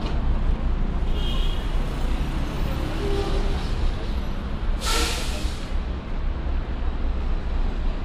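City street traffic: a steady low rumble of engines, with a short, loud burst of hissing air about five seconds in.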